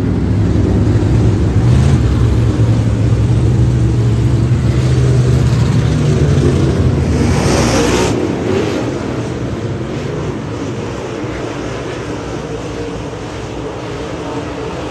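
Dirt-track modified race car engine running hard at a steady pitch, then dropping back and quieter a little past halfway, just after a brief rushing noise.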